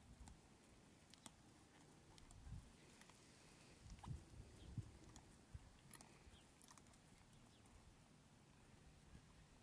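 Near silence with faint, muffled hoof thuds of a horse moving over soft sand arena footing, a few slightly louder thumps about four to five seconds in.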